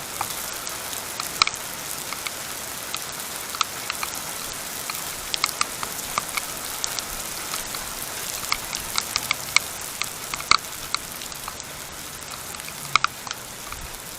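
Outdoor trail-camera sound: a steady hiss with scattered sharp ticks and a few louder clicks, at no even rhythm.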